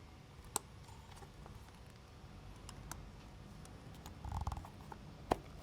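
Handling noise from a Zenit B film camera body being fitted back together: a few sharp small clicks, one about half a second in and one near the end, with fainter ticks and a brief low rubbing sound a little after four seconds in.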